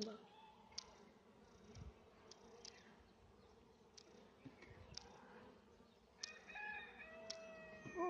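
Mostly quiet, with scattered faint clicks from the wooden beehive boxes being handled. A little after six seconds in, a rooster crows once, a long held call.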